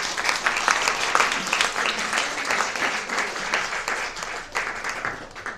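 Small audience applauding, with one pair of hands clapping close by; the applause dies away near the end.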